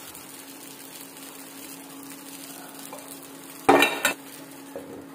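Appam batter sizzling faintly in a cast-iron appam pan over a steady low hum. A loud metal clatter about three and a half seconds in comes as a steel lid is brought to the pan.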